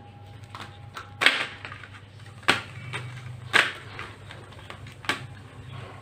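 Coil of flexible silicone neon LED strip being handled and wound by hand, the loops knocking and rubbing together: four sharp taps, the loudest about a second in, over a low steady hum.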